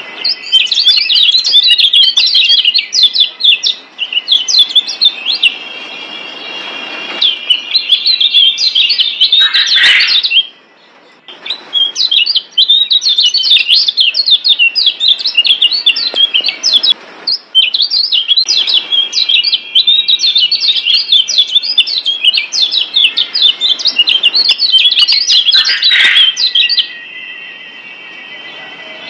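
Kecial kuning (Lombok yellow white-eye) singing long runs of fast, high twittering notes, with short breaks about ten and seventeen seconds in. Steady high tones sit underneath at the start and near the end.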